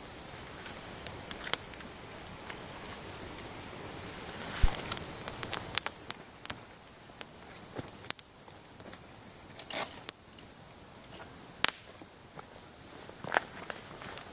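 Small campfire of twigs and split wood burning, crackling with irregular sharp pops and snaps.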